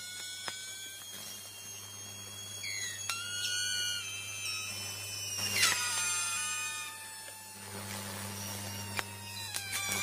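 Overhead power-line conductor burning and arcing: a steady low electrical hum with high squealing, whistling tones above it. The high tones drop in pitch together about halfway through and again at the end.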